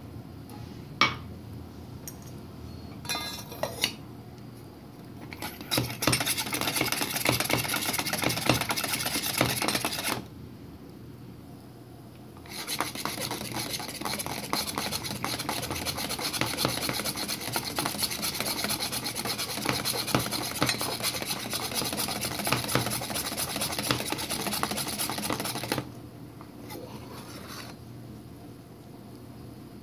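Stainless-steel manual plunger milk frother being pumped rapidly, its mesh plunger churning warm milk into foam. It runs in two spells, a short one and then a longer one, with a pause of about two seconds between them, after a few clinks as the lid goes on.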